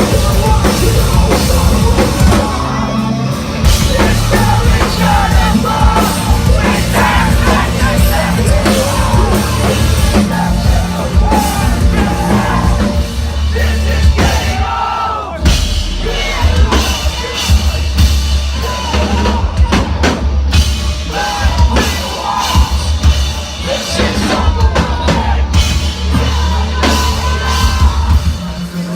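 Live post-hardcore band playing loud and distorted, with pounding drums, heavy bass and guitars, and shouted vocals.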